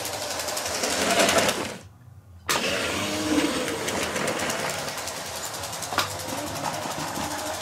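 Motorised Lego train running on plastic track: a steady small-motor whir and wheel clatter, broken by a brief drop-out about two seconds in and a sharp click near six seconds.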